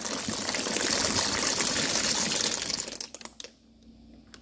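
Pot of water at a rolling boil with pasta cooking in it: a dense bubbling hiss. It drops away about three seconds in, after a few light clicks.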